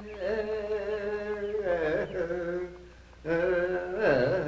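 A single unaccompanied voice singing, or chanting, long drawn-out notes in two phrases, with a short break between them about three seconds in.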